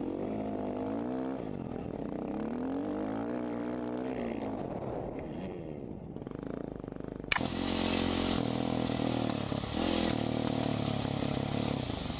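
Off-road motorcycle engine revving up and down, its pitch rising and falling in waves. About seven seconds in it cuts abruptly to another motorcycle engine running louder and steadier, with more hiss.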